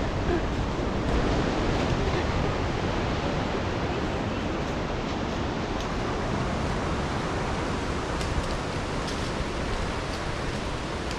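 Steady rush of ocean surf mixed with wind.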